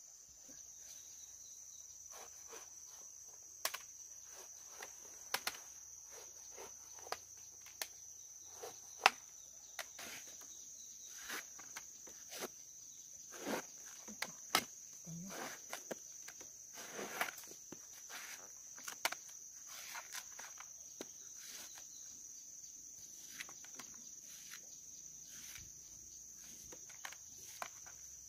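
Large kitchen knife cutting through the thick rind of a pomelo in short, irregular crunching strokes and scrapes, with slabs of peel dropping onto a plastic cutting board. A steady high insect drone, like crickets or cicadas, runs underneath throughout.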